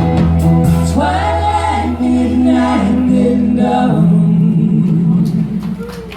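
Live folk band ending a song: several voices sing a held harmony over a sustained guitar and bass chord. The low bass note stops about four seconds in and the sound thins out near the end.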